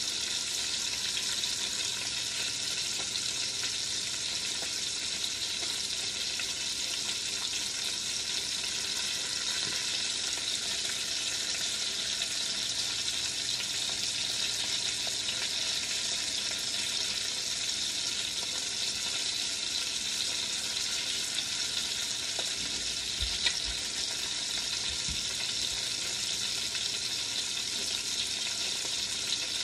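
Chicken pieces sizzling steadily as they brown, searing on one side in a 6-quart enameled cast iron Dutch oven.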